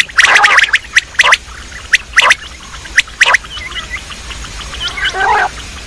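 Quail calling: a run of short, sharp notes at irregular spacing, with harsh rasping bursts just after the start and again near the end, and faint high chirps in between.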